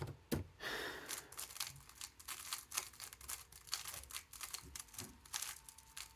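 A speedcube being turned by hand: a quick, irregular run of light plastic clicks as the layers snap through moves, likely while a scramble is applied to check it.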